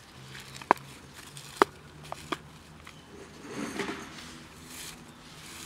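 Cats eating dry kibble from plastic containers on dry leaves: four sharp clicks and taps in the first two and a half seconds, then a brief rustle of dry leaves about three and a half seconds in.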